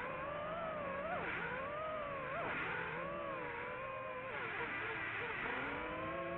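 Racing drone's motors whining, the pitch rising and falling again and again as the throttle changes, over a steadier low hum.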